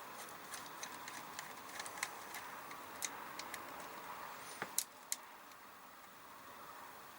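Light, irregular clicks and ticks of small tools and parts being handled while the motor is taken out of the RC truck's gearbox, with a sharper click a little under five seconds in.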